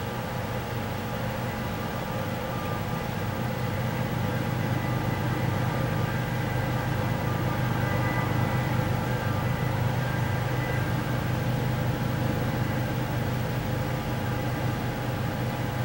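Norfolk Southern diesel locomotives rolling past: a steady engine drone with a faint whine above it, growing a little louder toward the middle as the units go by.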